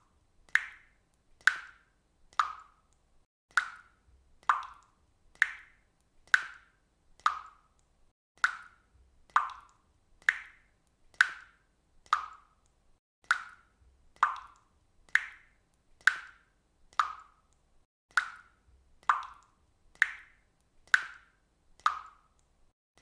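Water dripping from a faucet, one drop about every second in a steady, even rhythm, each drop a sharp plink with a short ringing tail.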